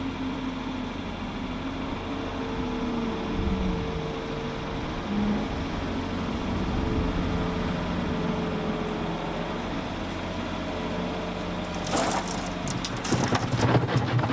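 Skid-steer loader's engine running, its pitch rising and falling as the machine moves. About twelve seconds in, a bucket of manure lands in the manure spreader's box with a rush of thuds and clatter.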